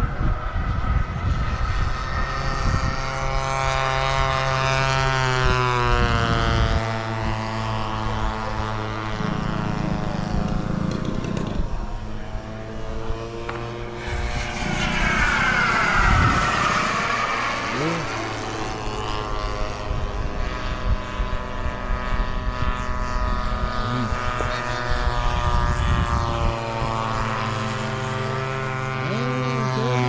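Radio-controlled model aircraft flying past overhead. Its engine note swells to a loud peak about halfway through as it passes closest, then falls away, with a steady low engine hum underneath.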